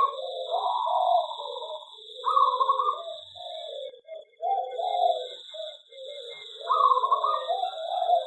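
Several zebra doves (perkutut) cooing in repeated phrases that overlap one another, over a steady high-pitched whine that drops out briefly about four seconds in.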